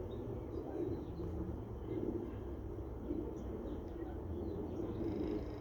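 Doves cooing over and over, with a few faint chirps from small birds.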